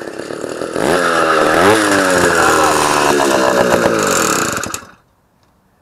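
Small two-stroke engine on a motorized Huffy bicycle running with a buzzing tone, louder from about a second in as the bike comes close, its pitch rising and falling with the throttle. The engine cuts off just before five seconds in.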